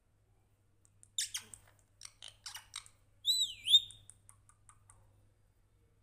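Caged green parakeet calling: a run of short, sharp chirps from about a second in, then a loud whistle that dips in pitch and rises again, followed by a few faint quick ticks.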